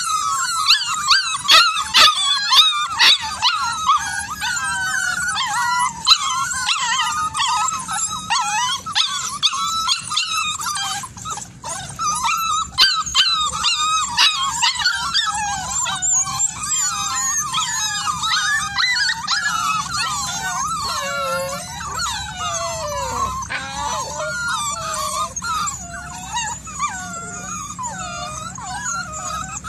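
A litter of puppies whining and yelping together in a constant overlapping chorus of cries, with several sharp clicks in the first few seconds.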